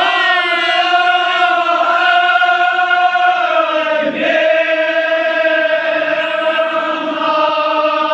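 Men's voices chanting a Kashmiri marsiya (elegy) together in long, drawn-out notes, with a short break and a new phrase about four seconds in.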